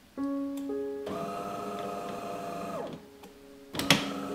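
De'Longhi bean-to-cup espresso machine just switched on, its motor whirring steadily for about two seconds in its start-up cycle, then winding down with a falling pitch. Near the end comes a single sharp metallic knock as a stainless-steel milk jug is set down on the counter.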